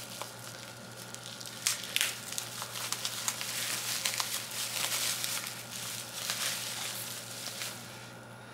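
Plastic bubble wrap crinkling and foam packing peanuts rustling as a wrapped part is handled in and lifted from a shipping box, with many sharp crackles; the handling gets quieter near the end.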